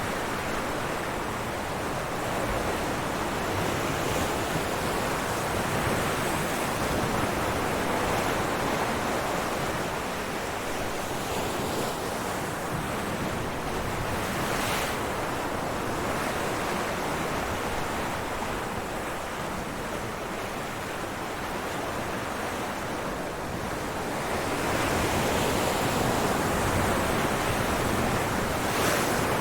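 Ocean waves breaking on rocks: a continuous wash of surf that swells and eases, a little louder over the last few seconds.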